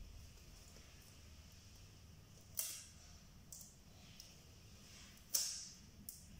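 Paper masking tape pulled off the roll in two short rips, about three seconds apart, with a couple of faint ticks as it is pressed down.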